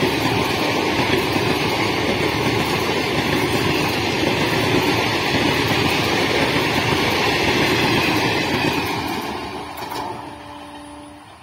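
Sealdah–Lalgola Fast Passenger's coaches rolling past close by at speed, a loud steady rumble and rattle of wheels on rail. The last coach goes by about nine seconds in and the sound fades quickly as the train moves away, leaving a faint steady tone.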